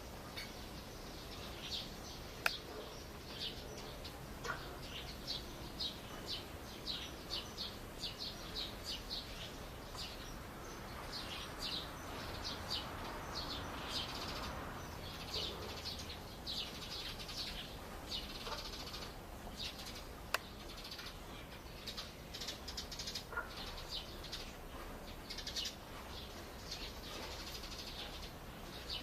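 Small birds chirping: many short, high notes in loose runs, with a few sharp single taps and a soft rush of noise about halfway through.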